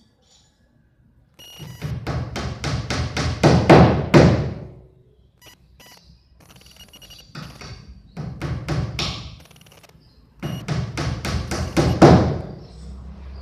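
Rapid hammering in three bursts of quick strikes, about five a second, each burst building to its loudest blows near its end.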